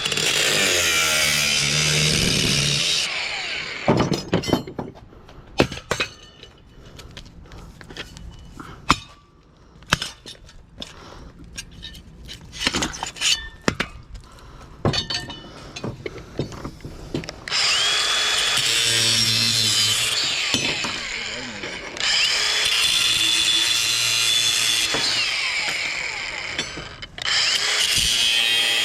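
Power tool cutting into a scrap electric motor in several runs of a few seconds each, each run starting with a rising whine as the tool spins up. Between the cuts, in the middle stretch, comes a series of sharp clanks and knocks of metal parts being handled.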